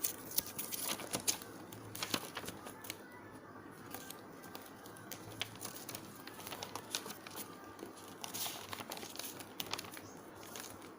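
A sheet of paper being folded and creased by hand for an origami boat, with irregular crinkling and small crackles.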